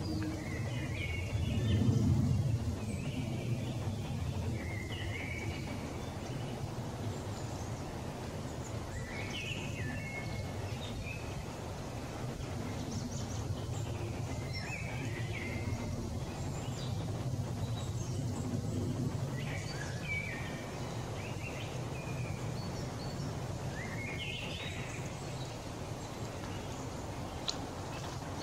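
Songbirds singing short phrases every few seconds over a steady low rumble, with a brief low swell about two seconds in.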